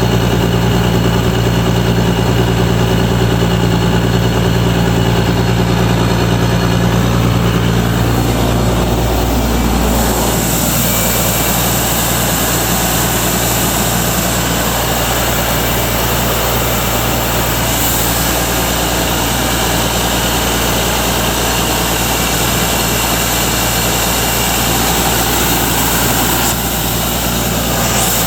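Ingersoll 750 portable air compressor's engine running steadily. About eight seconds in its note drops, and a broad hiss joins it and carries on.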